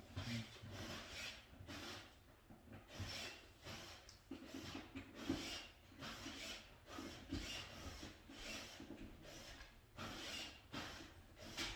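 Irregular rubbing and scraping handling noises, a quick rustle or scrape every half second or so, from hand work with wires and tools on a wiring board.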